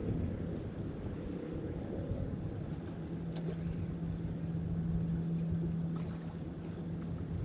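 Wind buffeting the microphone and sea washing against the breakwater rocks, over a steady low hum that fades about a second in and comes back around three seconds in. Two faint clicks about three and six seconds in.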